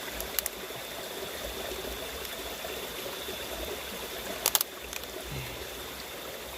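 River water flowing steadily, with a couple of short sharp clicks about half a second in and a louder cluster of clicks about four and a half seconds in.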